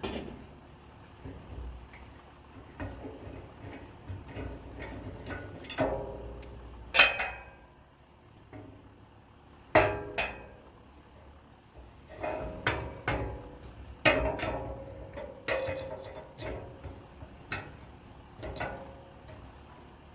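Steel hand tools knocking and clanking, about a dozen irregular strikes, each with a brief metallic ring. The loudest come about 7 and 10 seconds in.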